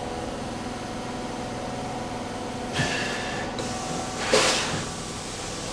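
Carpet-cleaning equipment running with a steady hum. It is broken by two short bursts of hissing, one about three seconds in and a louder one about a second and a half later.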